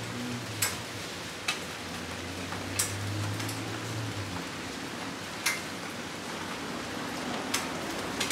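Steady rain hissing, with single drips striking a hard surface close by, about one every second or two. A low hum runs under it for the first half and then fades out.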